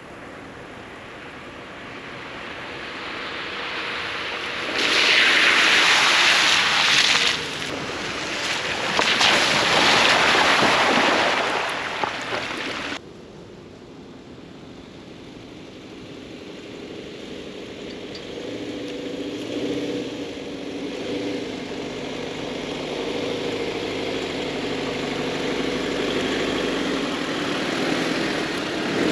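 Off-road driving in a 2019 Subaru Forester SUV: rushing vehicle noise that swells into two loud rushes, then breaks off abruptly and gives way to a steady, lower hum of the vehicle running.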